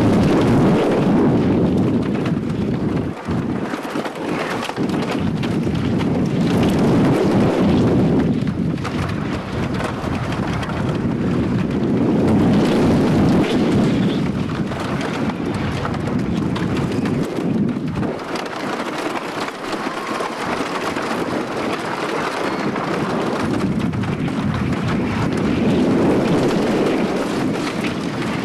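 Wooden roller coaster train running over its track through drops and hills: a steady rumble and rush that swells and fades every few seconds.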